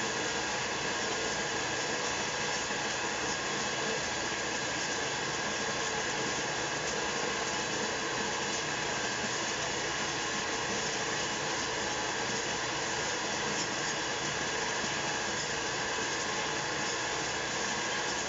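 Puffed-snack machine running with a steady whir and hiss, its motor going constantly while the puffed pieces spill off its chute into a plastic bin.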